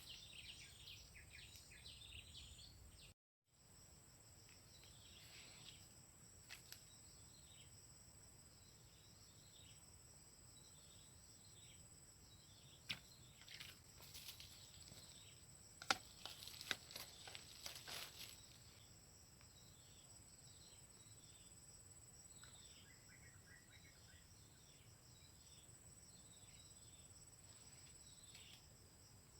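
Faint outdoor ambience: a steady high-pitched insect drone with many short, repeated chirps, and a scatter of clicks and knocks about halfway through.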